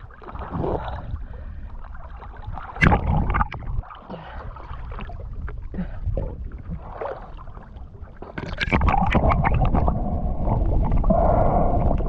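Sea water gurgling and sloshing around the microphone with muffled knocks, louder from about two-thirds of the way in.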